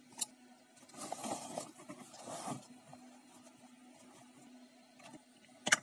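Hands working small parts on a workbench: a plastic power-outlet housing and a metal-cased dimmer being handled and a screwdriver used. A short click, then two stretches of scraping and rubbing from about one to two and a half seconds in, and a sharp knock near the end.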